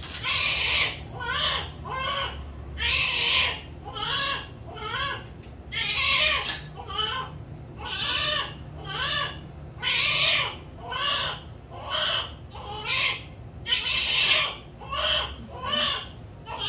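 Newborn baby crying just after birth: short wails that rise and fall, about one a second, with a longer, louder cry every few seconds.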